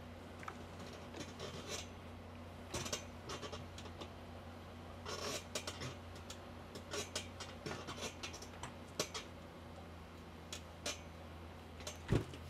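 Clothes being ironed: the iron scraping and sliding over fabric, which rustles, with scattered small clicks and knocks at an uneven pace. A steady low hum runs underneath.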